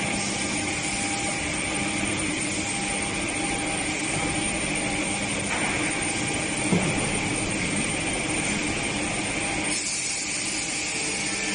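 Woodworking machinery in a door production line running steadily: a continuous mechanical hiss with steady whines, and one brief knock about seven seconds in.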